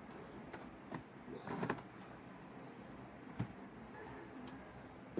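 Faint, steady background hiss with no hum from an 8-track player playing a homemade Bluetooth adapter cartridge with nothing streaming, broken by a few soft clicks.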